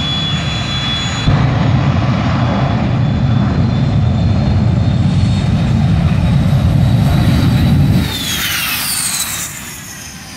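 Jet engine of a jet-powered drag-racing tank running at full power during a run: a loud, steady roar with a high whine, getting louder about a second in. About eight seconds in the roar drops off and several high whines fall in pitch.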